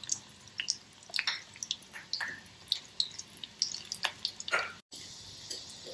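Methi kadbole (fenugreek and wheat-flour dough pieces) frying in hot oil in a steel kadhai: irregular crackling and spitting pops as the moisture in the dough sizzles off.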